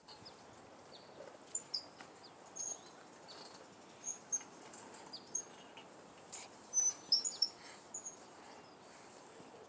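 Birds chirping outdoors: many short, high chirps and quick falling notes scattered over a steady hiss, busiest about seven seconds in.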